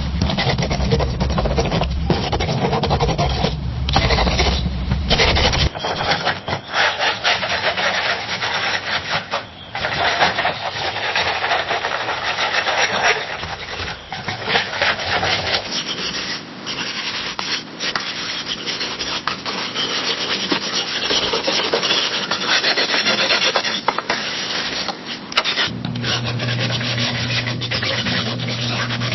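Pencil writing on a wooden desk: continuous scratching strokes with brief breaks where the pencil lifts. Several separate takes follow one another, each with its own low background hum.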